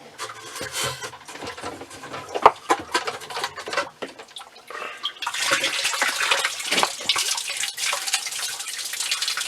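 Water splashing and pouring out of a sump pump's disconnected discharge pipe, with clunks and knocks in the first half, one sharp knock the loudest. From about five seconds in it settles into a steady rushing pour.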